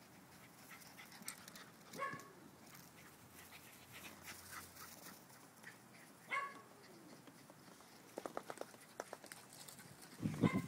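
Dogs playing: two short whining yelps about four seconds apart, each falling in pitch, then a quick run of soft ticks. A louder burst close by near the end is the loudest sound.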